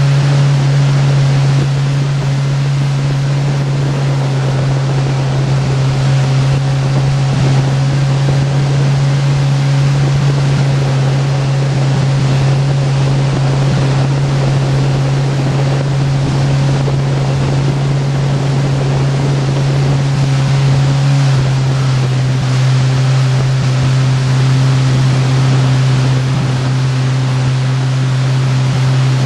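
Motorboat engine running steadily at towing speed over rushing water and wind noise. The engine note drops slightly about 21 seconds in.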